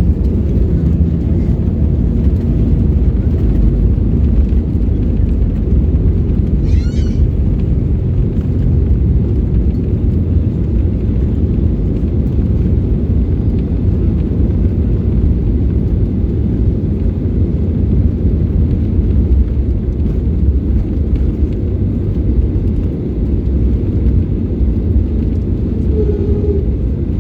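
Steady low rumble of an airliner heard from inside the passenger cabin, with a brief high wavering squeak about seven seconds in.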